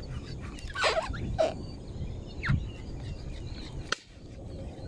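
A few short animal calls: two about a second in, then a brief falling call near the middle, over faint outdoor background noise. A sharp click comes near the end.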